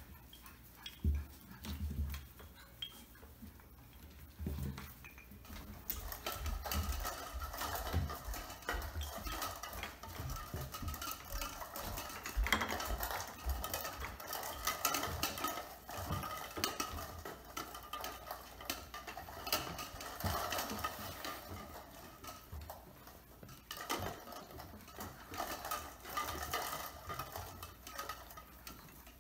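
Light clicking and clattering from four-week-old golden retriever puppies playing in and around a PVC-pipe play frame hung with wooden dowels, on a tile floor. It is sparse for the first few seconds and then becomes a busy run of small knocks and clicks.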